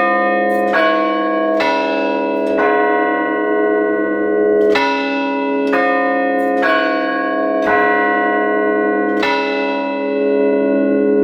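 Church tower chime bells played by the clock's automatic tune mechanism, struck one at a time in a slow melody of about nine strokes, each bell ringing on under the next.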